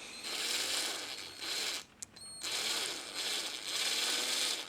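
Rasping, ratchet-like whirr of a small mechanism as an axle is worked into a 1:64 diecast model car wheel, in two stretches with a short pause about two seconds in.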